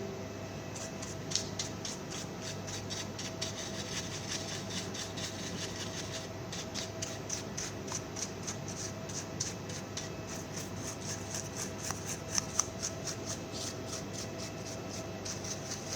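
Quick, regular scratchy strokes, several a second, over a steady electrical hum with a faint whine.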